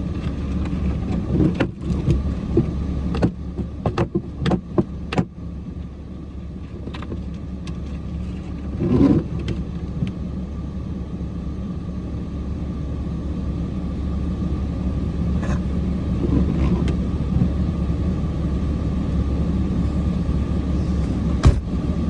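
Cummins diesel pickup engine running steadily, with a run of sharp clicks and knocks in the first few seconds and a brief louder thump about nine seconds in.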